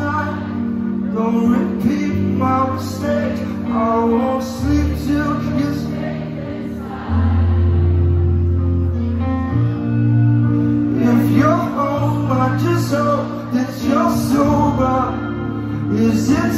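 Live music heard from the audience: a man singing with an acoustic guitar and a keyboard holding sustained low notes.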